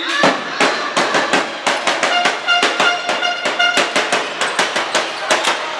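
Sports-hall handball game sounds: a rapid, irregular run of sharp knocks and claps, about four a second, with a short stretch of repeated squeaky pitched tones in the middle.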